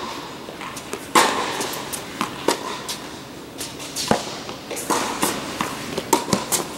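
Tennis rally: sharp pops of rackets striking the ball and the ball bouncing on the court, echoing in a large indoor hall.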